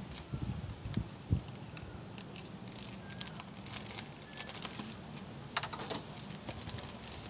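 Plastic mailer wrapping of a parcel being slit and handled with a small knife: scattered crinkles and clicks, a few soft knocks against the wooden table in the first second and a half, and a short sharper crackle of plastic about six seconds in.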